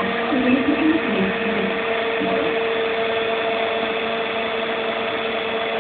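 CNC machine running with a steady motor whine over a constant mechanical hum.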